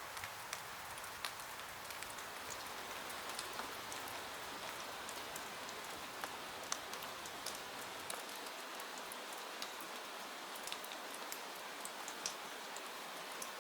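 Steady rain, an even hiss with many small, sharp pops and ticks scattered through it.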